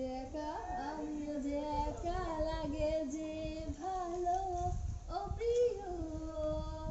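A high female voice singing a melody with long held notes, over a low rumble.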